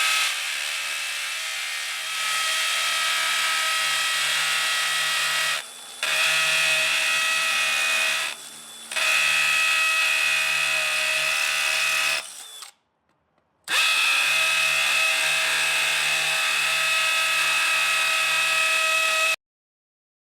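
DeWalt DCD996 18V brushless hammer drill running at speed with a steady whine, in several long runs: it eases off briefly twice, stops for about a second partway through, starts again and cuts off suddenly near the end.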